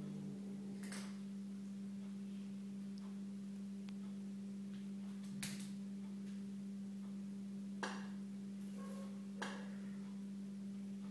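A steady low hum, with four short sharp clinks of a cat's head against a stainless steel food bowl as it eats.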